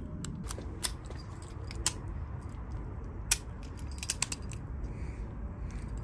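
Scattered sharp metallic clicks, bunched a little past the middle, as a cheap padlock is handled and its shackle and locking mechanism are worked to test whether it still locks after being forced open. A low rumble of handling noise runs beneath.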